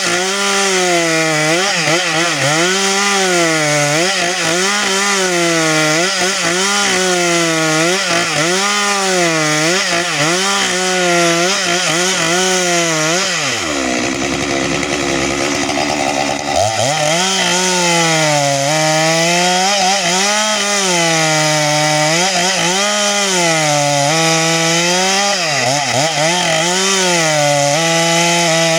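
Stihl MS 462 two-stroke chainsaw at full throttle cutting through a log, its engine pitch swinging up and down every second or two as the chain loads and frees in the cut. About halfway through it falls to a low idle for a couple of seconds, then revs back up and keeps cutting.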